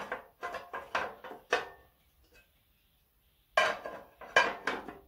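Glass cookware lid clinking and clattering on the metal pot section of an electric table grill as it is set on and shifted into place: a run of clinks in the first two seconds and another cluster near the end.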